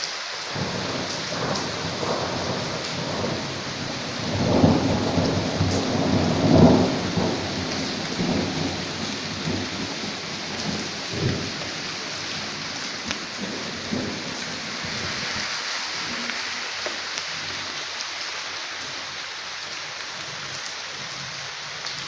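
Steady rain with a long roll of thunder that builds, is loudest about four to seven seconds in, and rumbles away over the next several seconds, leaving the rain alone.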